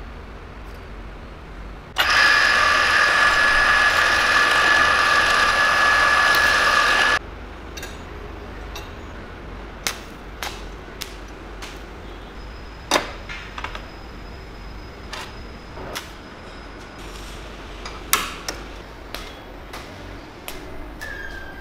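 A small electric power tool runs at steady speed with a whine for about five seconds, starting and stopping abruptly, followed by scattered sharp clicks and knocks.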